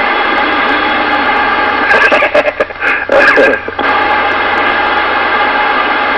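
CB radio speaker carrying a noisy received signal: a steady hiss with interference that comes on suddenly, with a weak, garbled voice breaking through for a couple of seconds in the middle. The operator blames traffic lights interfering with the receiver.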